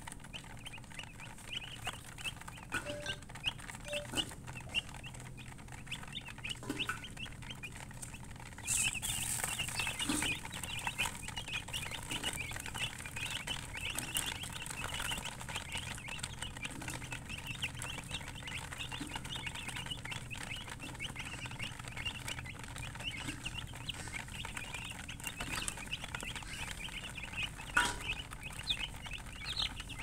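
A flock of baby chicks peeping nonstop, many short, high chirps overlapping. The peeping grows louder and busier about nine seconds in.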